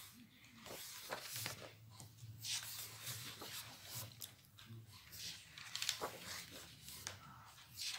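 Paper pages of a colouring book being turned and handled, with faint irregular rustles and swishes.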